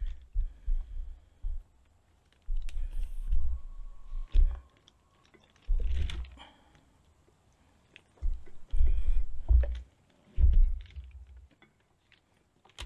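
Hands trussing a raw chicken with string on paper: irregular soft taps and rustles with dull low thumps, coming in several bursts with short pauses between them.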